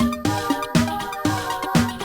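Electronic dance music with a steady, fast beat and repeating synth notes.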